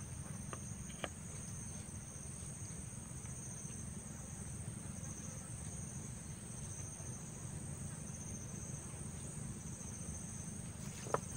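Insects chirring steadily in two unbroken high, shrill tones, over a steady low rumble.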